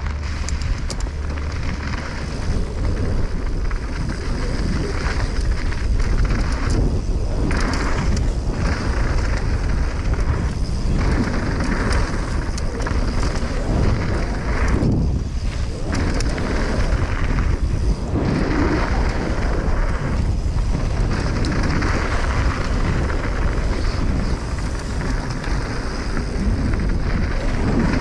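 Wind rushing over a GoPro microphone on a mountain bike speeding down a dirt jump trail, with the tyres rolling over packed dirt and gravel in a loud, steady rumble that thins out briefly several times.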